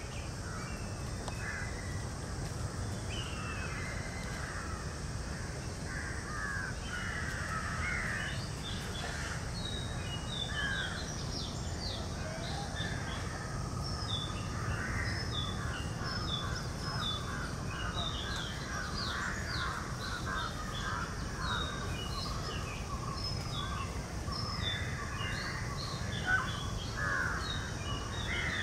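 Birds calling, many short repeated calls throughout, over a low steady rumble.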